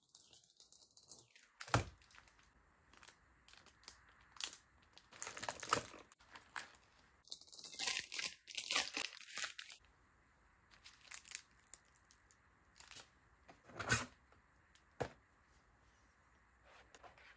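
Plastic packaging crinkling and being torn open by hand, the longest and loudest tearing rustle about eight seconds in, with scattered sharp knocks of items handled in a cardboard box.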